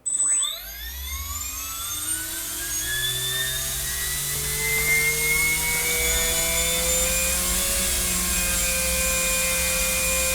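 Small electric motor with a propeller spinning up: a whine that starts abruptly, rises quickly in pitch over the first second, keeps climbing more slowly, then holds steady at high speed for the last few seconds.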